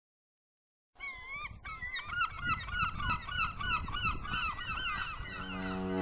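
A flock of birds calling over one another in quick, wavering cries, over a low rumble, starting about a second in. About five seconds in, a ship's horn starts a long, deep, steady blast.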